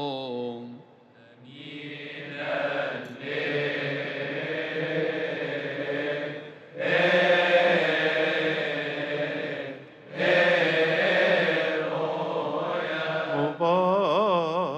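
Choir of Coptic Orthodox deacons chanting a liturgical hymn together in three long sustained phrases, with brief breaths between them. Near the end a single voice takes over with a wavering, ornamented melisma.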